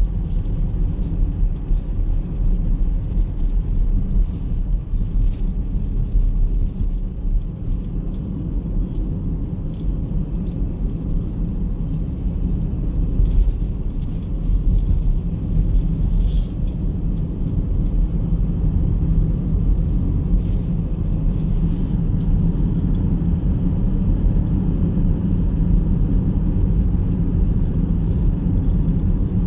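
Steady road and engine rumble heard from inside a moving Chevrolet car's cabin.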